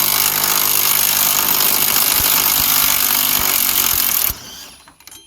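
Impact wrench running continuously, spinning out one of the wheel-bearing hub bolts that were already loosened with a breaker bar, then stopping abruptly about four seconds in.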